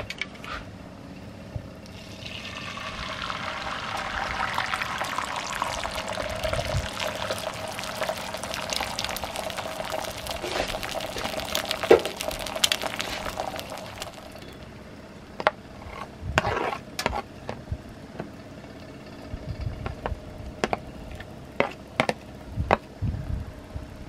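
Beaten omelet egg poured into hot oil in a cast-iron skillet, sizzling hard from about two seconds in and dying away after about twelve seconds. Then a series of light clicks and taps from a metal spoon against the pan.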